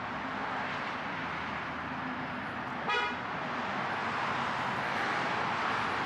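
Steady city street traffic noise, with one short car horn toot about three seconds in.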